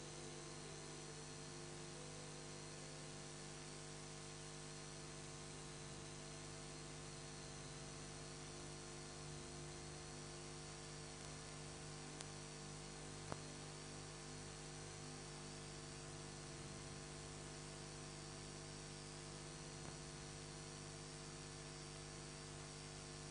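Steady electrical hum over a constant hiss, with a short click about thirteen seconds in.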